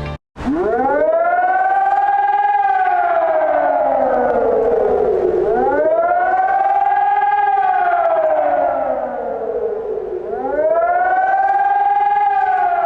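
Civil defence siren wailing: the pitch rises quickly, then falls slowly, in three cycles about five seconds apart.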